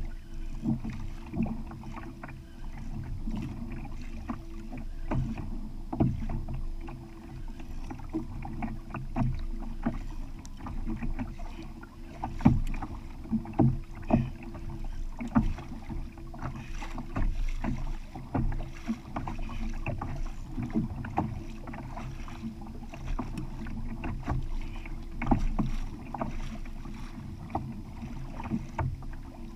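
Kayak on open sea: irregular knocks and water slaps against the hull over a steady low rumble, a few knocks a second, with one sharper knock about halfway through.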